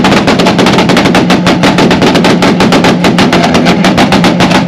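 Car engine held at steady high revs, its exhaust popping and banging in rapid succession, about ten pops a second.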